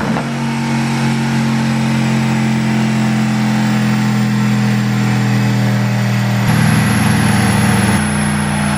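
Mercedes-AMG GT S 4.0-litre twin-turbo V8 running on a chassis dyno, held at a steady engine speed. About six and a half seconds in it turns louder and rougher for a second and a half, then settles back to the steady note.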